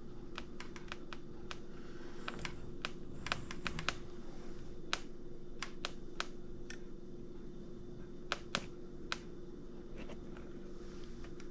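Fingers tapping on a touchscreen again and again: irregular light taps, thick at first and then sparser. The screen is not responding to the touches.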